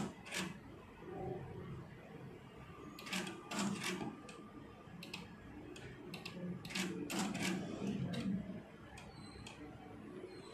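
A dozen or more short, sharp clicks in irregular clusters from triggering image captures on the ICG angiography fundus camera, taken in quick succession as the dye fills the retinal and choroidal vessels.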